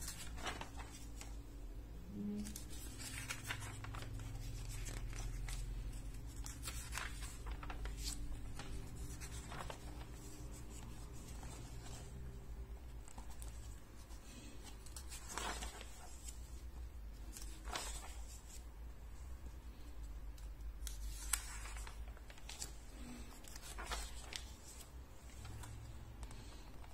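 Glossy magazine pages being turned and handled by hand: short paper rustles and swishes every few seconds, over a low steady hum.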